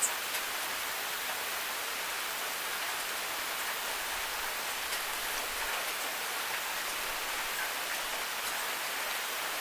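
Rain on a rain gutter: a steady hiss of falling water with a few scattered drip ticks, the sharpest right at the start.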